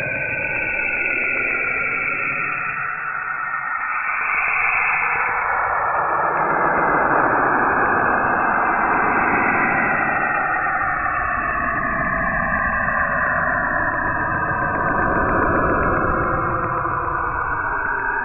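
Space sound made by converting planetary radio emissions into audio: a continuous eerie hissing drone whose bands drift slowly up and down, swelling louder about a third of the way in.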